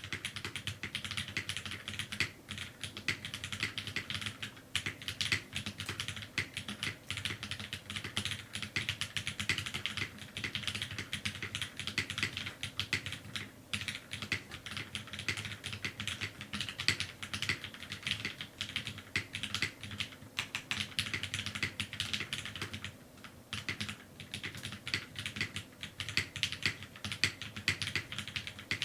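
Fast, continuous typing on a Daji Ocho Cuatro custom mechanical keyboard with lubed vintage Cherry MX Black linear switches, a full aluminium plate and GMK keycaps, picked up through a camera's built-in microphone. The typing starts suddenly and breaks off briefly twice.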